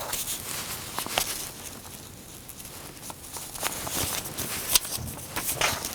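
Foundation paper and fabric being handled and positioned on a table: scattered light paper rustles and soft taps.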